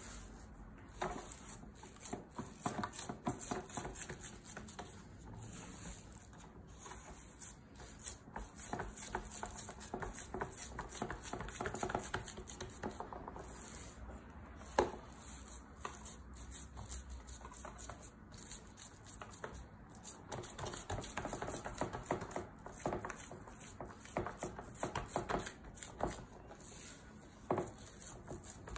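Hands pressing and spreading crumbly ma'amoul dough into an aluminium baking tray: irregular soft rubbing, patting and scraping of dough against the metal, with one sharper knock about halfway through.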